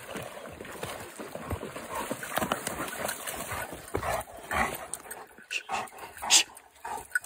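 A dog making short, broken whimpering sounds amid irregular rustling noise.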